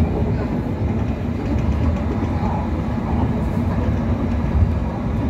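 Hong Kong Light Rail Phase I tram car running between stops, heard from inside the car: a steady low rumble of wheels on track and running gear, with a faint steady hum.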